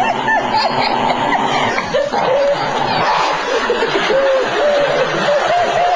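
A crowd laughing, many voices at once in a dense, continuous wash.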